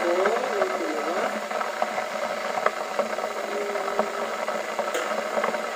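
Steady hiss of a stovetop aluminium steamer in use, with a few light clicks from the metal lid as it is lifted off.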